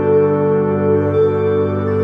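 Slow ambient background music with held, sustained chords.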